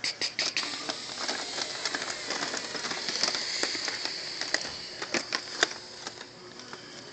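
Handling noise: an irregular run of sharp plastic clicks over a crackling rustle, from toy packages being handled.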